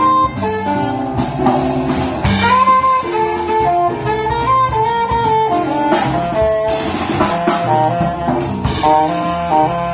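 Live small-combo jazz: a saxophone plays a quick melodic line of many short notes over plucked upright bass and a drum kit with cymbals.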